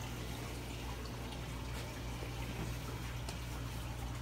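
Reef aquarium's circulating water trickling steadily, over a steady low hum.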